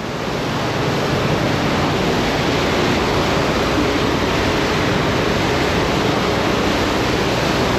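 Loud, steady rushing of a tour boat's churning wake and engine at the stern while under way, with a faint steady hum underneath.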